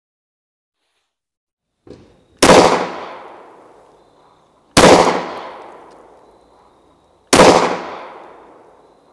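IWI Masada Slim 9mm pistol firing three slow, single shots of 115-grain full-metal-jacket ammunition about two and a half seconds apart, each shot with a long echoing tail. A faint pop comes just before the first shot.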